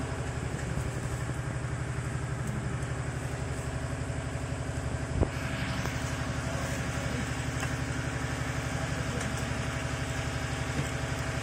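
An engine running steadily with an even pulse, with one sharp click a little after five seconds.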